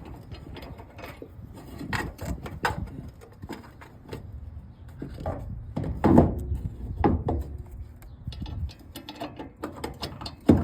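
Irregular clinks, knocks and rubbing from hand work on a car door hinge and its bolts, with a heavier thump about six seconds in and another near the end.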